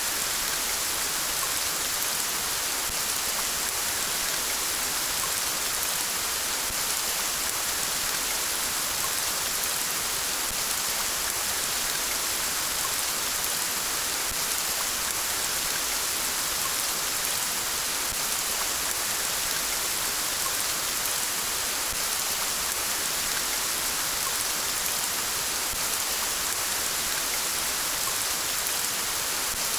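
Steady rain falling, an even hiss with no breaks or separate drips standing out.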